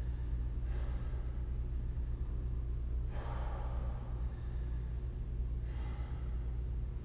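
A man breathing hard while holding a side plank: three long, heavy exhales about two and a half seconds apart, over a steady low hum.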